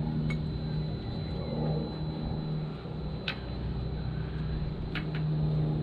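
A steady low motor hum with three sharp clicks as the roller-furler drum is worked on by hand.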